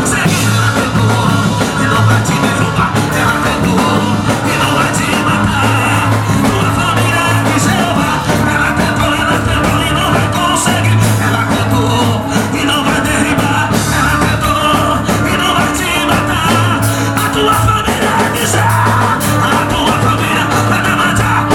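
Live band playing loud rock-style worship music, with drums, bass and guitar and singing over it.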